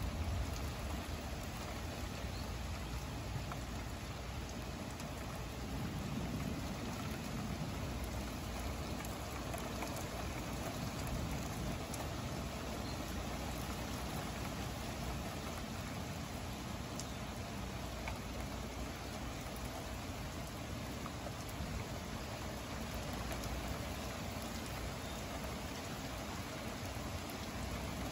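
Steady rain falling, an even continuous hiss of drops on the ground and surrounding surfaces.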